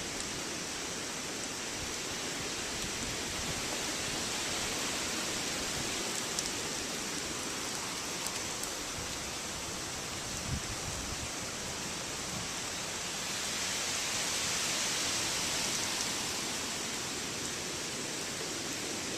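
Steady hiss of hurricane rain and wind, swelling a little about two-thirds of the way through, with a few faint ticks of drops.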